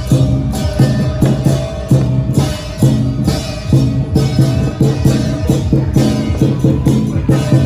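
Lion dance percussion: a big drum beaten in a quick, driving rhythm with crashing cymbals.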